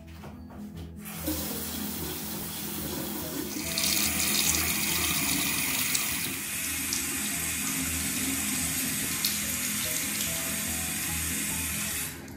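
Bathroom sink faucet running, water pouring over an electric toothbrush head and splashing into the basin. The flow grows louder a few seconds in and stops suddenly near the end as the tap is shut off.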